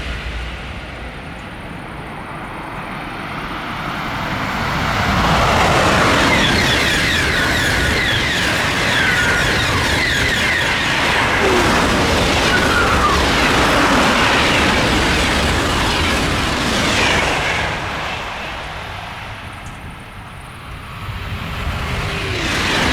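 TGV high-speed train passing at speed: the noise swells over several seconds, holds for about ten seconds, then fades away, and starts building again near the end.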